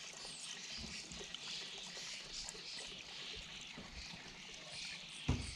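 Petrol pouring from a jerry can through a funnel into a lawnmower's fuel tank, a steady trickle. A single thump near the end.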